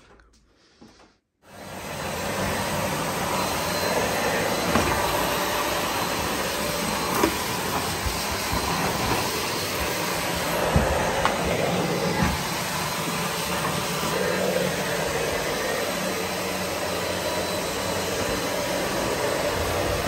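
Vacuum cleaner running steadily; its noise starts suddenly about a second and a half in, after near silence.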